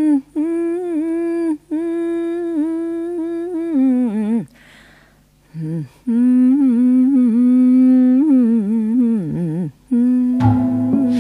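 A woman's solo voice humming wordless long-held notes with vibrato and sliding ends, unaccompanied, opening a Japanese kayokyoku song. A band with saxophone comes in about ten seconds in.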